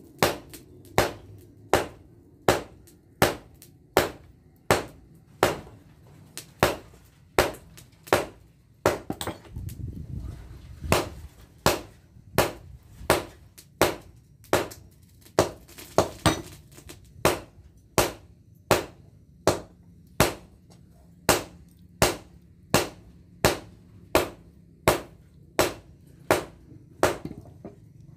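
Hand hammer striking a red-hot folded pamor (pattern-welded) steel billet on an anvil during hot forging of a machete blade. The blows come in a steady rhythm, a little under one and a half a second, each a sharp metallic strike.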